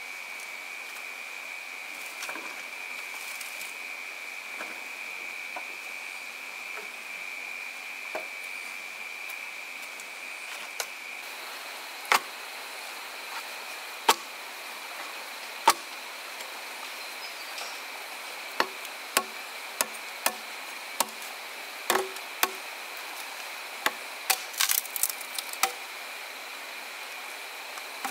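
Sharp knocks of a tool striking wood: a few spaced strikes from about a third of the way in, then a quicker, irregular run of strikes in the second half. A steady high-pitched insect drone runs underneath.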